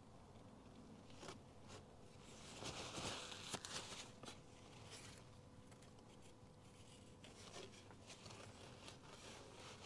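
Faint handling noises from hands working on an air cleaner at the bench, with a short scratchy rustle and a few clicks about three seconds in.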